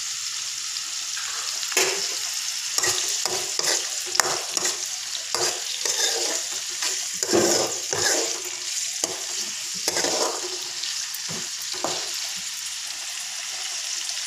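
Green chillies and tomato pieces sizzling in hot oil in a metal pan, with a spatula scraping and knocking against the pan irregularly as they are stirred from about two seconds in.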